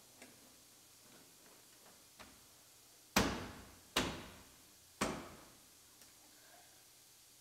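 Plastic overhead console being pushed up by hand into the roof of a 2015 Chevrolet Silverado cab: a few faint clicks, then three sharp knocks about a second apart as it is pressed home into its clips, each dying away over about half a second.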